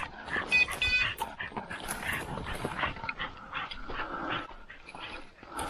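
Brush rustling and crackling with footsteps as a person pushes through forest undergrowth, with a bird dog moving through the brush close by. A short high ringing tone comes in about half a second in.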